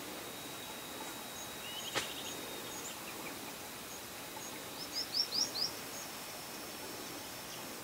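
Wild birds chirping over a faint outdoor hiss and a thin steady high tone. A short run of chirps and a single sharp click come about two seconds in. Near the middle, a quick series of four or five rising chirps is the loudest sound.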